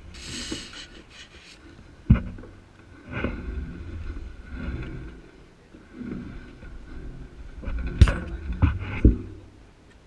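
Action-camera handling noise: rustling and low rumble broken by sharp knocks, one about two seconds in and three close together near the end.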